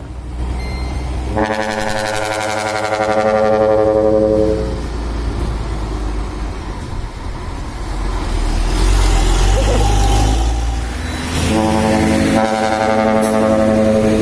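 A dump truck's ship-style trumpet air horn sounds two long blasts, the first about a second and a half in and the second near the end. Between the blasts the heavy truck's engine rumbles loudly.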